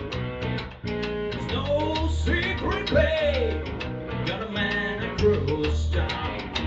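Blues rock band playing an instrumental passage: a lead guitar line with pitch bends that arch up and down, over a steady bass and drum groove.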